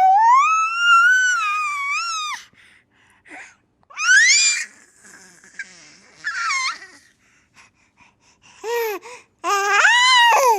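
Baby's high-pitched squeals and babbling: a long squeal that rises and falls at the start, a short rising squeal about four seconds in, a falling one a little later, and another arched squeal near the end, with quiet gaps between.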